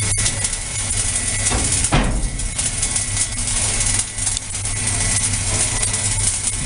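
Welding arc crackling steadily with a constant low hum, as the carriage lays a weld along a vertical seam.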